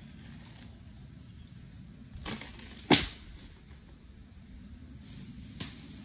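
Three sharp knocks over a steady background with a thin high whine, the middle one, about three seconds in, much the loudest.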